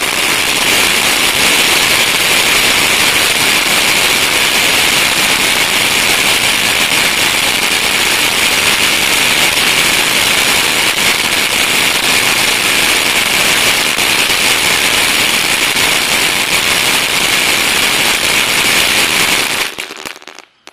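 Brothers Pyrotechnics 'Blue Moon' 200-gram fountain firework burning with a loud, steady hiss of spraying sparks, which dies away near the end as the fountain burns out.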